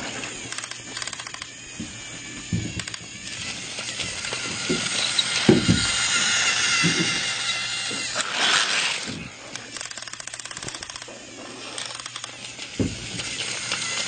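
Battery-powered toy train's small electric motor running with a steady high whine, its gears and wheels making a rapid clicking, with a few short low knocks along the way.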